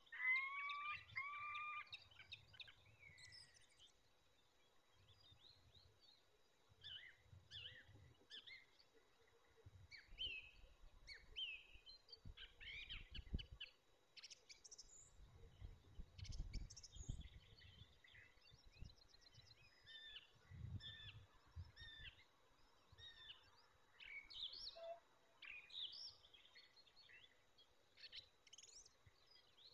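Wild birds calling and singing around the nest: it opens with two loud rising calls, then many short chirps and trills from small birds are scattered throughout. Faint low rumbles come and go underneath.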